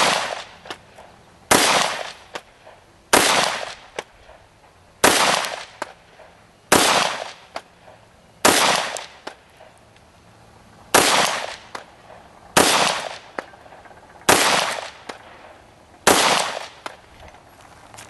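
FN FNP-9 USG 9mm pistol firing ten single shots in slow, steady fire, about one every one and a half to two seconds with a longer pause after the sixth, each shot trailing off in a short echo.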